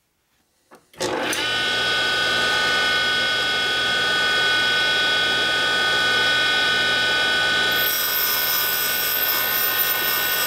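Bench-top valve refacing grinder switched on about a second in, its motor and grinding stone coming straight up to a steady whine made of several fixed tones. A thin, very high tone joins about eight seconds in as a valve face is ground.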